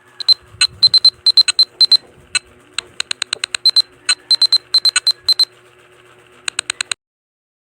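Smartphone ringtone of short, high-pitched electronic beeps fired in quick clusters of three to five with short pauses between them, stopping abruptly about a second before the end.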